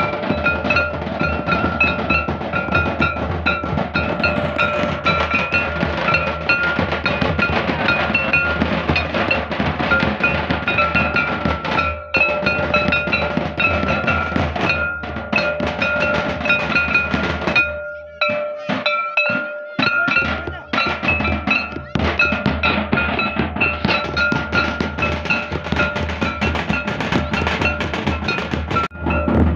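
Several traditional barrel drums, played with hands and sticks, keeping up a fast, dense rhythm, with a steady high note held over the drumming. The drumming thins out briefly about two-thirds of the way through.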